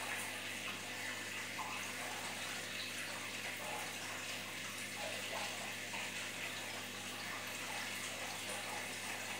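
Large home aquarium's water circulation: steady splashing and bubbling at the water surface from the filter return and air bubbles, over a steady low hum.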